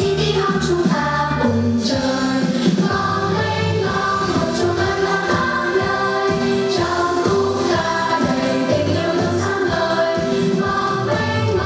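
A choir singing a Vietnamese song with instrumental accompaniment, several voices together over a steady beat and bass.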